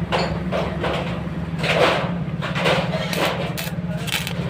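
Steady low hum of a running machine with irregular knocks and scrapes of metal work over it, several in a row.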